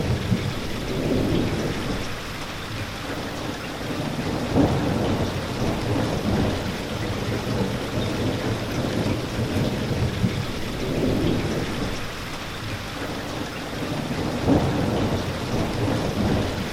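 Steady rain, with a low rumble that swells and fades every few seconds and a few brief louder taps.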